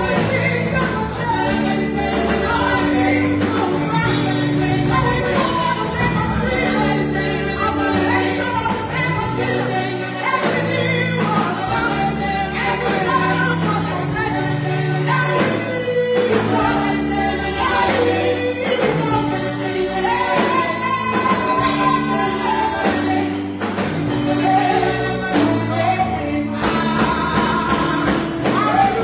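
Gospel music with a choir singing over a steady bass and keyboard accompaniment.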